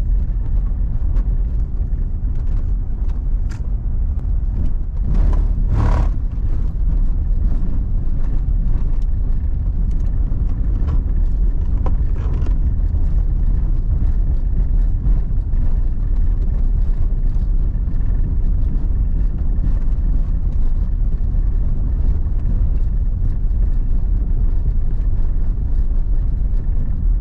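Car on the move: a steady low rumble of road and engine noise, with scattered faint clicks and a brief louder whoosh about five seconds in.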